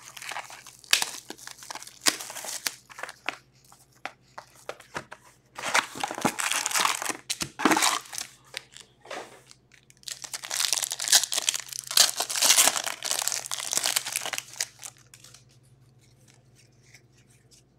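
Foil hockey card packs and their cardboard hobby box being torn open by hand, in several bursts of ripping and crinkling, then quieter handling of the cards for the last couple of seconds.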